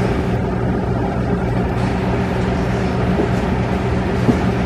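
Steady low mechanical hum with a buzzy edge, unchanging throughout, with a faint tap a little before the end.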